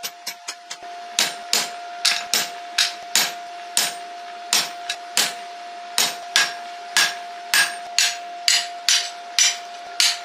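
Hammering on a red-hot steel draft horseshoe on an anvil. A short run of quick, light hammer taps comes first. From about a second in, a steady series of heavier sledgehammer blows follows, a little over two a second, struck onto a hand-held tool set on the shoe, each blow ringing briefly. A steady high tone runs underneath.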